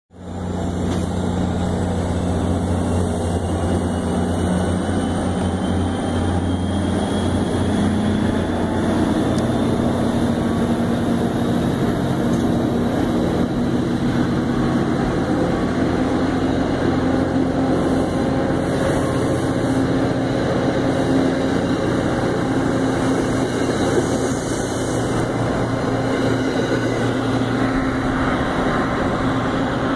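NJ Transit diesel-hauled commuter train pulling out and rolling past. A steady engine drone and a whine that rises in pitch over the first several seconds as the train speeds up, under a continuous rumble of steel wheels on the rails as the cars go by.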